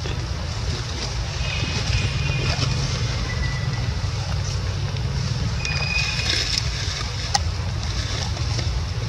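Wind buffeting the microphone: a steady low rumble. A few faint, short, high-pitched chirps sound through it in the first half and again about two-thirds of the way in.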